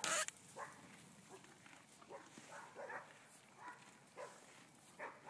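Horse grazing up close: cropping tall grass and chewing, heard as irregular short crunching rips, with one louder rip right at the start.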